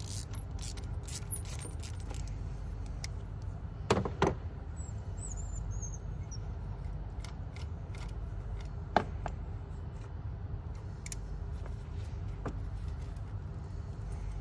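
Small metallic clicks and clinks of a deep socket and extension being handled as a glow plug is wound out of a Honda CR-V 2.2 diesel cylinder head by hand, with two sharper clicks about four seconds in and another about nine seconds in. A steady low hum runs underneath.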